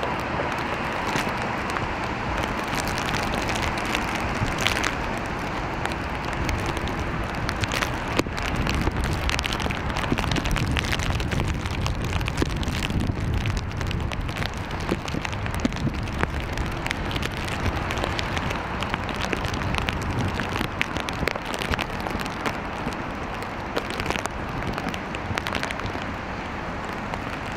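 Steady rain falling on pavement and foliage, with a dense patter of small drop taps close to the microphone. A low rumble swells in the middle.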